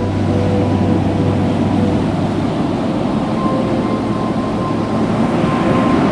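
Loud, steady rushing beach ambience of surf and wind, under background music that holds a sustained note.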